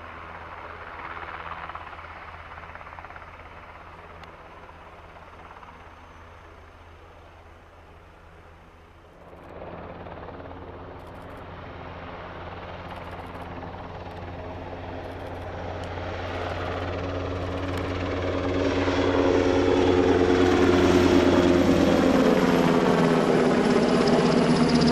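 NH90 twin-turbine military helicopter: rotor thump and turbine noise from a hovering helicopter. After a cut about 9 seconds in, the helicopter approaches from a distance and grows steadily louder until it passes low overhead near the end, with a high turbine whine at its loudest.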